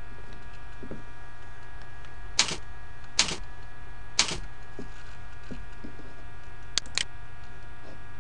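Computer keyboard and mouse clicks: three single clicks about a second apart, then a quick pair near the end, over a steady electrical hum with faint whining tones.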